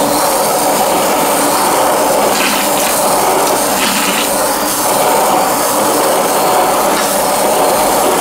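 Braun immersion blender running steadily, its blade blending a thick mix of black sapote pulp, sugar and orange juice.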